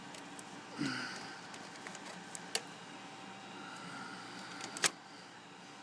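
Ink cartridges being handled and pushed into a Canon MP780 printer's printhead: a few sharp plastic clicks as they snap into place, the loudest near the end, with light handling noise between.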